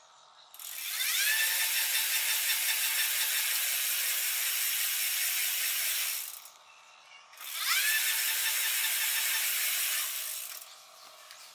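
250 W geared e-bike motor, run by a twist throttle, spinning the rear wheel through the chain in two runs with a short pause between. Each run opens with a rising whine as the motor spins up, then settles into a steady high whir.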